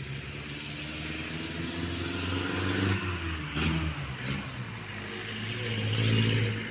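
A motor vehicle's engine running past, swelling in loudness about three seconds in and again near the end, with two short sharp noises in the middle.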